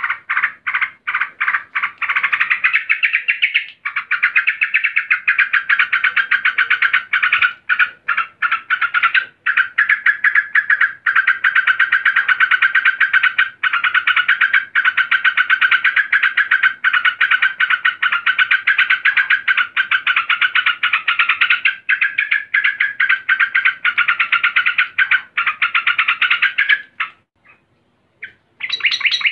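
Female yellow-vented bulbul (trucukan) in an agitated 'ngamuk' calling bout, a long, loud run of rapid chattering notes with only brief breaks, a call meant to draw a male into song. The chatter stops about 27 seconds in and starts again briefly at the very end.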